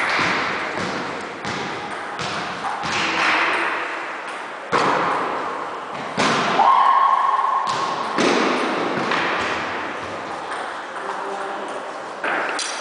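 Irregular thuds and slaps of arms and hands clashing, with steps on a wooden floor, during a fast two-person knife-defence drill, echoing in a large hall. About six and a half seconds in, a steady ringing tone sounds for about a second.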